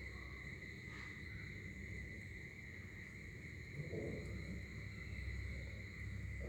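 Faint steady background noise: a low hum with a steady high-pitched whine over it, and a brief soft low sound about four seconds in.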